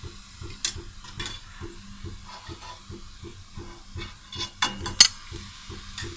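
Gulab jamun frying in hot oil in a kadhai, the oil sizzling, while a metal spoon is worked in the pan to lift them out, with a run of soft knocks and several sharp metal clinks against the kadhai, the loudest about five seconds in.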